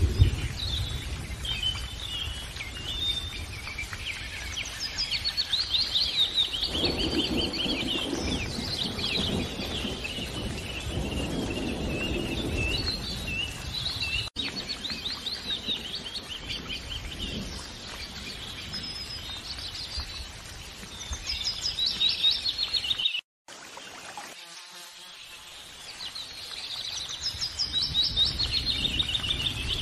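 Birds singing and chirping, many short calls overlapping, over a low rumble. The sound cuts out abruptly for a moment about three-quarters of the way through, then returns quieter and builds back up.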